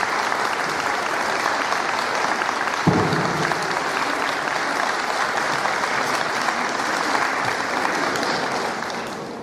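Audience applauding steadily, dying away near the end, with a single thump about three seconds in.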